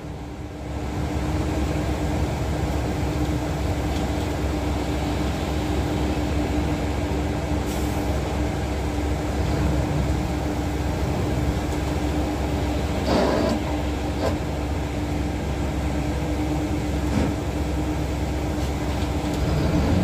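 Jacon concrete line pump and the concrete mixer truck running together, a steady heavy diesel-machinery drone with a constant hum. There is a brief clatter about 13 seconds in.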